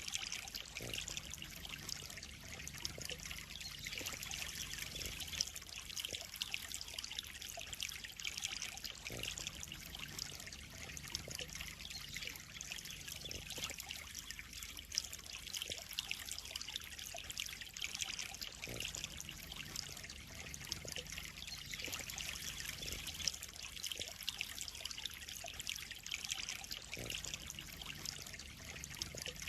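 Water trickling and splashing steadily into a koi pond, a continuous bright splashing hiss.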